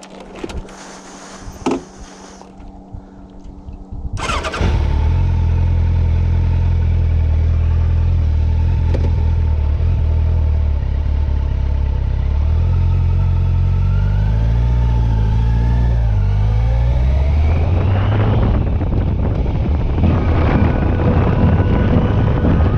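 Motorcycle engine starting about four seconds in, then running steadily. Its pitch shifts up and down, then rises twice near the end as the engine revs and the bike accelerates.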